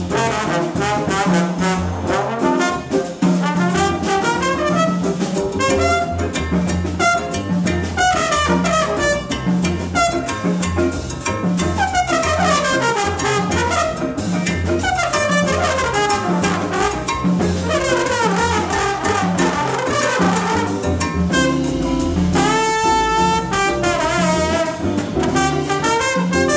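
Live small-group jazz: a trombone solo played in fast, sliding runs over upright bass and drum kit.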